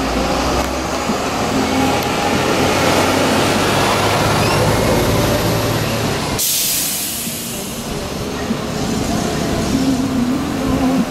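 Vehicle noise: a loud, steady low rumble, broken about six seconds in by a sudden loud hiss that fades over a second.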